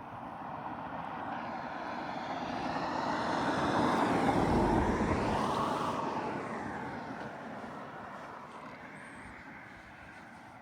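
A motor vehicle passes by. Its noise swells to a peak about four and a half seconds in, then fades away, and its pitch drops as it goes past.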